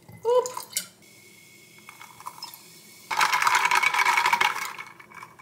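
Liqueur poured from a bottle over ice in a wine glass, then about three seconds in a loud fizzing hiss lasting about a second and a half as the spritz foams up and is stirred.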